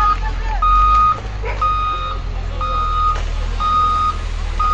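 Caterpillar wheel loader's reversing alarm beeping about once a second, each beep a steady high tone about half a second long, over the low rumble of the loader's diesel engine. The alarm signals that the loader is in reverse.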